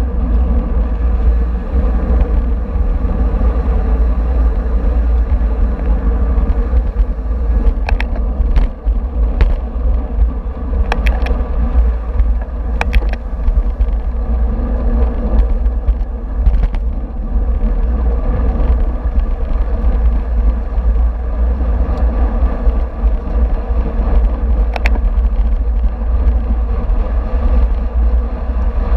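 Wind rumbling on the microphone of a camera mounted on a racing bicycle moving at speed, a loud steady low buffeting over an even rush of road noise. A few sharp clicks come through scattered across it.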